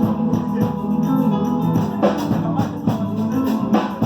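Music with a drum beat.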